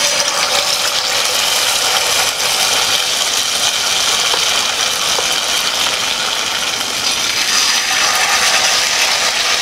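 Whole-wheat flour batter sizzling steadily in hot oil as spoonfuls are dropped in to deep-fry as pakoras, growing a little louder near the end as another spoonful goes in.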